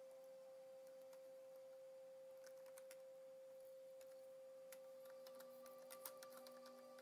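Near silence: a faint steady electrical hum, with scattered faint clicks from a computer keyboard and mouse that come more often in the last couple of seconds.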